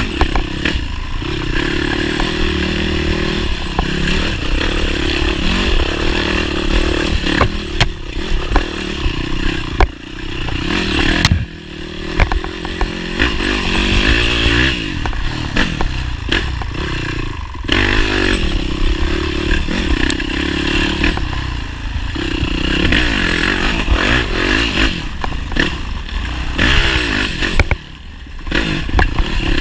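Motorcycle engine running under changing throttle, its pitch rising and falling, dropping away briefly about ten seconds in and again near the end, with frequent knocks and rattles.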